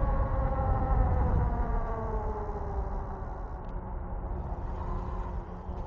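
Electric bike motor whining, its pitch gliding slowly down as the bike slows, over a steady low rumble of wind and tyres. The whine fades out about halfway through.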